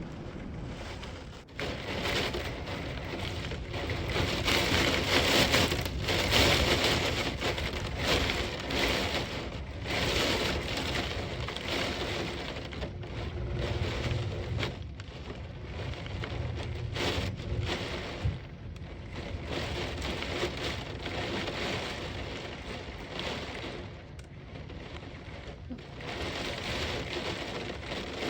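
Thunderstorm with heavy rain and strong gusting wind, the rush swelling and easing in waves.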